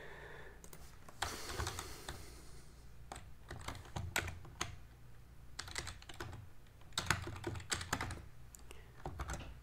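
Computer keyboard typing: irregular keystroke clicks, some in quick clusters, with a short hiss about a second in.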